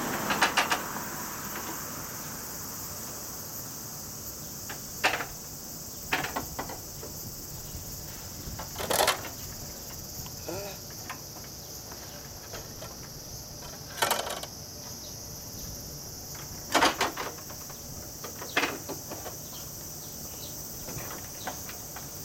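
Steady high-pitched drone of insects, broken every few seconds by short knocks and rustles, about eight in all.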